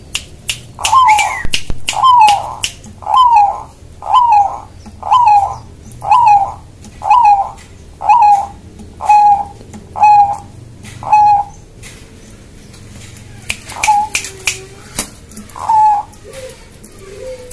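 Zebra dove (perkutut) cooing its rhythmic 'bekur' call: a run of about eleven short coos, roughly one a second, then a pause and two more, with sharp clicks between the notes.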